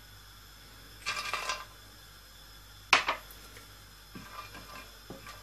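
Kitchenware sounds around a frying pan of cashew nuts in hot oil: a brief soft rustle about a second in, then a single sharp clink near the middle, followed by a few faint light ticks.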